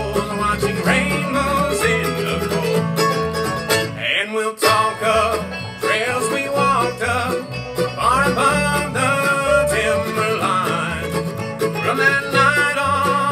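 Live acoustic bluegrass band playing an instrumental passage: banjo picking over guitar and plucked upright bass, with a bowed fiddle line. The music briefly drops out about four and a half seconds in.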